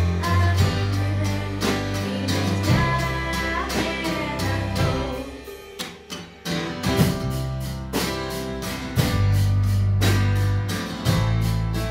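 Band music with a steady beat: a woman singing over bass and guitar. The voice falls away about five seconds in, and after a brief dip near six seconds the band plays on.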